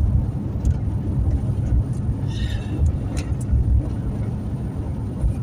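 Road and engine rumble inside a moving truck's cabin, steady and low, with a brief faint high squeak about halfway through.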